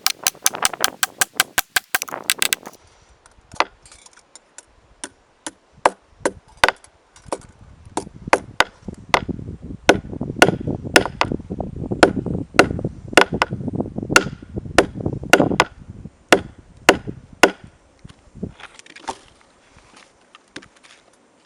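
Hammer blows on steel: a quick run of light strikes, then slower, heavier blows about one or two a second, thinning out to a few near the end.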